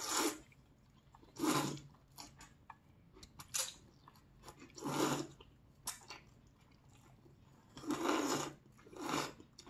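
Noodles from a bowl of jjamppong being slurped up in short pulls, about six over the stretch, with faint chewing between them.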